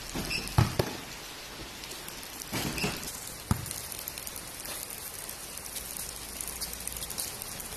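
Basketball hitting the tiled court: a hard thud about half a second in and another about three and a half seconds in, over a steady hiss.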